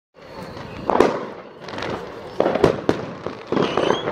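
Fireworks and firecrackers going off: sharp bangs at about one second and twice more past halfway, over continuous crackling, with a short high whistle near the end.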